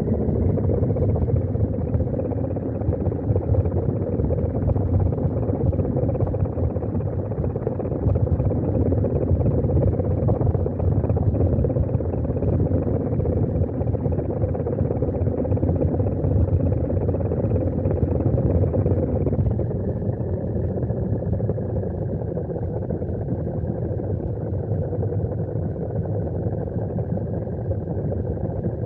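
Small electric RC car's motor and gears whining over the rumble of the drivetrain and tyres, heard from a camera riding on the car. The whine holds steady, then drops a little in pitch about two-thirds of the way through as the car slows.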